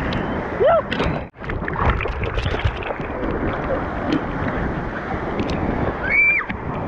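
Wind buffeting the microphone over rushing, splashing water. Two short yelps rise and fall, one about a second in and one near the end, and the sound cuts out for an instant early on.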